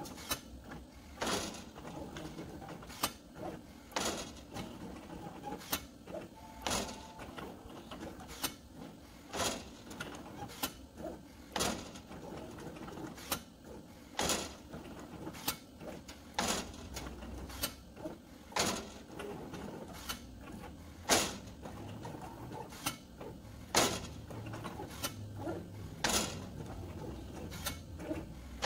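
CNC plasma table gantry running a felt-tip marker over sheet metal, its drives moving steadily, with sharp clicks every second or so.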